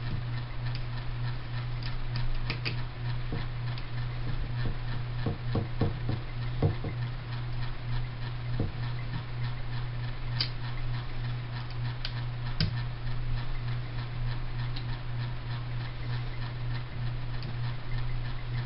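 Irregular small clicks and taps from an Allen key turning a stubborn screw in a paintball marker, as the stock is being removed. They sound over a steady low hum.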